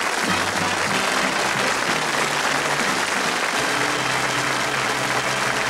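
Audience applause with music playing under it; the music comes in a moment after the start.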